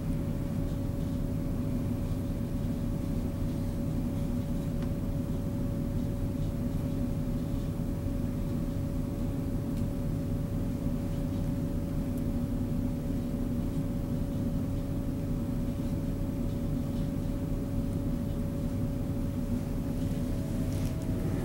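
A steady low mechanical hum with one constant mid-pitched tone running through it, unchanging throughout.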